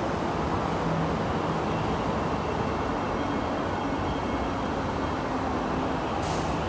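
MTR East Rail Line train rolling alongside the platform behind the platform screen doors: a steady rumble with a faint motor hum. Two short hisses come near the end.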